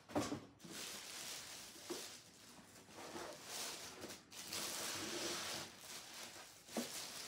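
Thin plastic packing bag rustling and crinkling in uneven bursts as it is handled and pulled off a boxed appliance.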